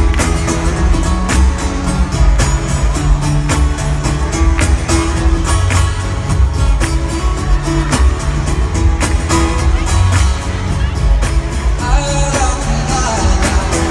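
Live arena concert music: acoustic guitar playing over a steady percussive beat. Crowd voices whoop near the end.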